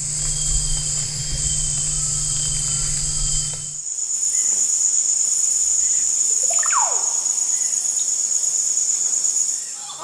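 Rainforest insect chorus, a steady high-pitched buzzing throughout. A low hum runs under it for the first four seconds and stops suddenly. A bird's single falling whistle comes about two-thirds of the way in.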